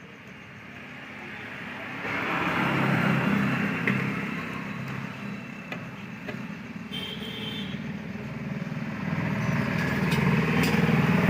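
An engine running, with a steady low pulsing, growing louder about two seconds in and again near the end.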